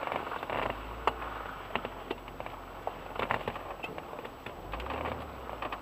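Off-road SUV crawling through deep mud ruts, heard from inside the cabin: a low engine drone under scattered sharp clicks, knocks and creaks from the body and suspension as it lurches over the ruts. The engine note swells briefly near the end.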